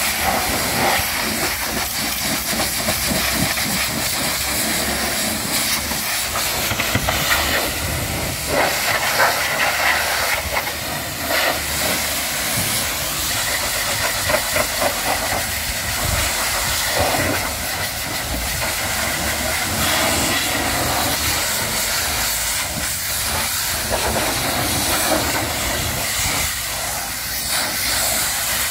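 A pressure-washer jet spraying water onto the steel rear bumper and underrun bar of a flatbed trailer and the wet concrete beneath. It makes a loud, steady hiss and spatter, with brief louder splashes here and there.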